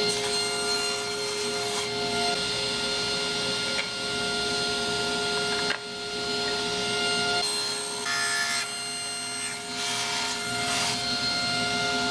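Electric woodworking power tool running with a steady high whine while cutting wood, the cutting noise changing and thickening in the second half.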